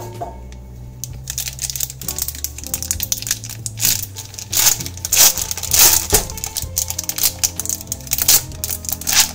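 Aluminium foil wrapper of a block of processed cheese crinkling and crackling as hands unfold and peel it open, starting about two seconds in, over background music.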